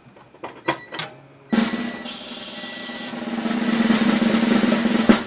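A few light clicks, then a 1995 Honda Civic's newly fitted starter motor cranking the engine for nearly four seconds, growing louder, and cutting off suddenly. The engine turns over but does not catch.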